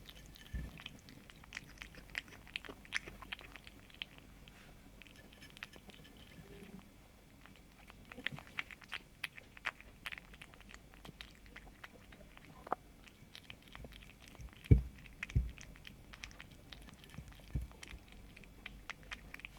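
Kitten chewing and biting on food: a run of quick, irregular clicking chews. Two louder thumps come about three-quarters of the way through.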